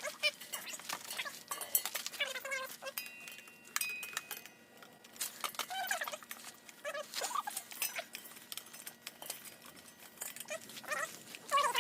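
A dog whining in short, bending, high-pitched calls, over scattered small clicks and knocks.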